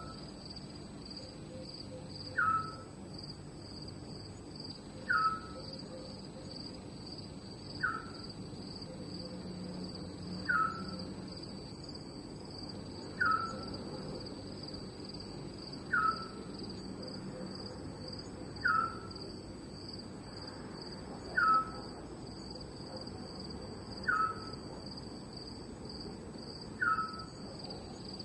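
Night ambience of crickets trilling steadily, high and continuous. Over it, a short falling call from another night animal repeats evenly, about every two and a half seconds.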